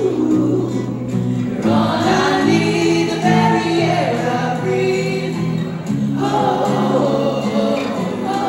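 Choir singing a Christian worship song with musical backing, in long held phrases that break off briefly about two seconds in and again about six seconds in.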